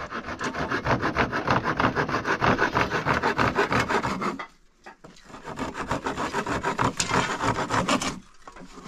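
Hand saw cutting a wooden board in quick back-and-forth strokes. It pauses briefly about halfway through, then saws on and stops shortly before the end.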